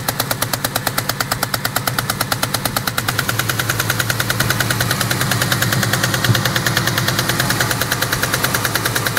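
2000 Ford Mustang GT's 4.6-litre V8 idling with a loud, rapid, evenly spaced knock from inside the engine. The owner hears it as coming from the left side of the engine and is unsure of the cause.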